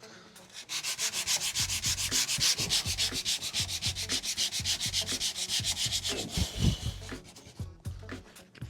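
Sandpaper worked back and forth over body filler and primer on a car body panel, in quick even strokes about five a second. The strokes pause about six seconds in, with a few low thuds, and start again near the end.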